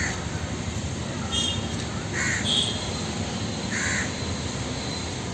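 Birds calling outdoors: several short, separate calls about every second, over a steady background hiss.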